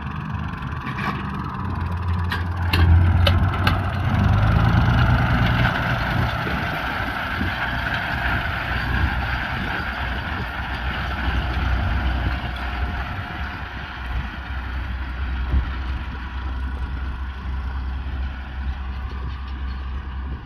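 Fendt 306 tractor's diesel engine running steadily as it pulls a tine weeder, loudest about three to five seconds in.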